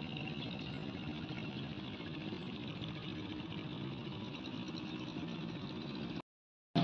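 A small engine running steadily with an even hum, cut off abruptly near the end.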